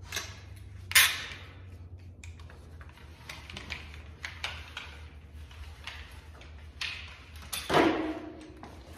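A handheld tubing cutter working on a length of copper pipe: small scattered clicks and scrapes as the pipe is trimmed, with a sharp knock about a second in and a louder clatter near the end, over a steady low hum.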